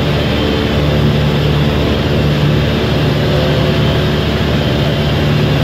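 Super Cub light aircraft's piston engine and propeller droning steadily in cruise, heard from inside the cabin with wind rush over the airframe.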